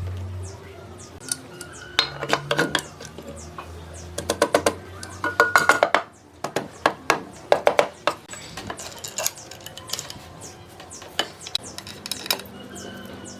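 Several short runs of rapid metallic clicking and clinking from metal tools or parts being handled, clustered in the first half and thinning out later.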